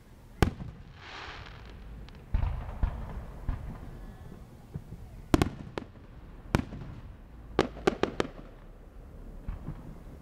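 Fireworks bursting overhead: about eight sharp bangs at uneven intervals, one of them a deeper rumbling boom, with a quick run of three bangs near the end and a brief hiss about a second in.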